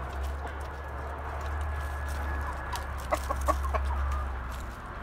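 Chickens clucking while feeding, with a quick run of short clucks about three seconds in, over a steady low rumble.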